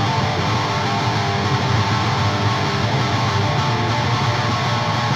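Live screamo band's electric guitars playing a steady, ringing intro over bass, without drums.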